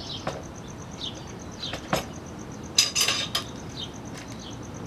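Steel tire spoons clinking against the wheel rim and each other as they are worked under the tire bead: a few sharp metallic clinks, with the loudest clatter about three seconds in.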